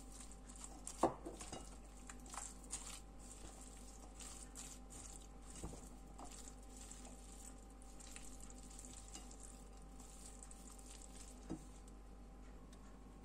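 Wooden spatula scraping sour cream from a glass bowl, with a sharp tap about a second in, then stirring a grated beet salad in a large bowl: faint wet squelches and scrapes of the spatula against the bowl.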